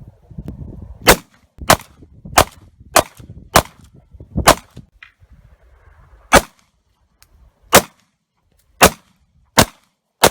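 About ten 9mm pistol shots from a Glock 43 subcompact: a quick string about half a second to a second apart, then slower, more spaced shots over a second apart.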